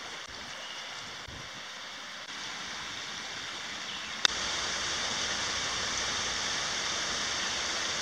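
Steady rush of water from a waterfall and its rocky stream. It gets a little louder about two seconds in, and again after a short click about four seconds in.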